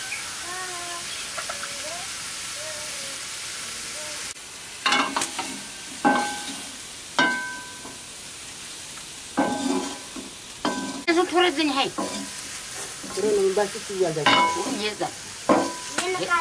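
Meat frying in a blackened iron wok, with a steady sizzle for the first four seconds. Then a perforated metal ladle stirs it, clanking and scraping against the iron pan in a string of sharp, ringing strokes.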